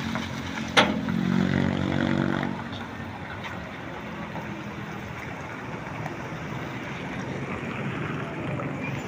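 Heavy truck's diesel engine running, louder for the first two and a half seconds, with a single sharp click about a second in; after that a quieter, steady engine and road noise.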